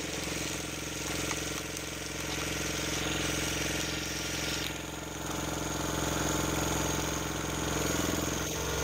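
Engine of a piece of heavy machinery running steadily at an even speed, with some mechanical noise over it.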